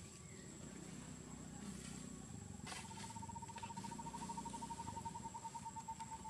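An insect trilling: a steady, rapidly pulsed, single-pitched call that starts a little under halfway in and keeps going, over a low outdoor rumble.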